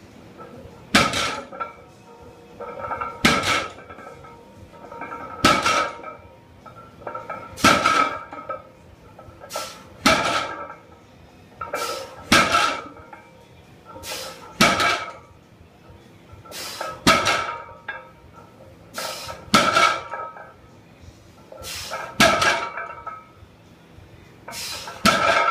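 A barbell loaded with 365 lb of iron plates set down on the gym floor between deadlift reps. It lands with a clanking thud about every two seconds, eleven times, with a lighter rattle of plates around each landing.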